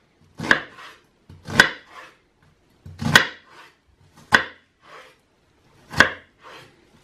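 Kitchen knife cutting through an onion onto a wooden cutting board: about five firm cuts spaced a second or so apart, each followed by a softer tap.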